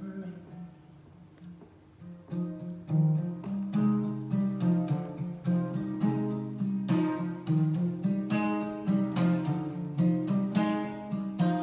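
Acoustic guitar played solo, an instrumental passage with no singing: quiet for the first two seconds, then strummed chords come in about two seconds in, with a strong accented strum about a second later and a steady strumming rhythm after.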